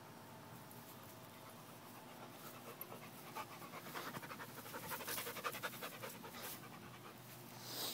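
A Labradoodle panting rapidly and close by after running, strongest in the middle. A brief rustling swell comes just before the end.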